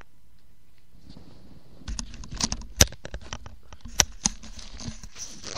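Headphones being handled and put back on close to the microphone: a quick run of clicks, knocks and rustling that starts about two seconds in.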